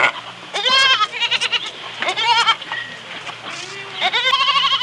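Goats bleating: about four quavering calls, the last one longer, near the end.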